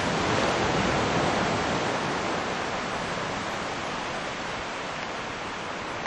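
Steady rushing noise of wind on the microphone, easing off slightly over the seconds.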